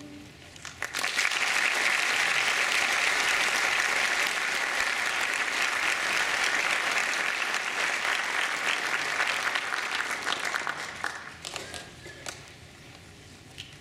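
Audience applauding as a choir's final sung chord dies away: the clapping swells within about a second, holds steady, then thins to a few scattered claps about eleven seconds in.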